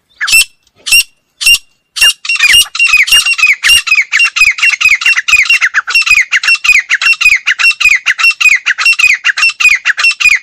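Female grey francolin calling: three separate sharp notes, then a fast, unbroken run of short falling notes, about five a second.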